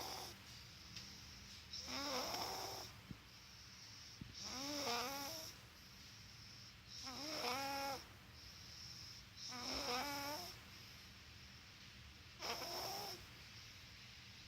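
A girl snoring in her sleep, one snore about every two and a half seconds. Each snore is a pitched, wavering tone with breathy hiss.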